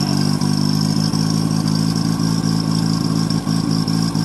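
Satoh S650G compact tractor engine running steadily.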